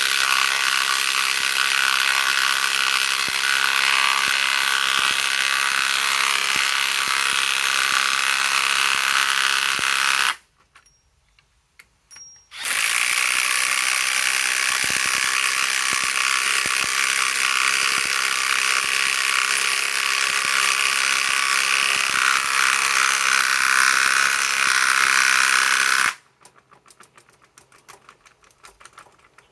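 RIDGID R8721B cordless right-angle impact wrench hammering as it drives lag screws into wood. One long run of rapid impacts stops about ten seconds in; after a short pause a second long run starts and stops near the end.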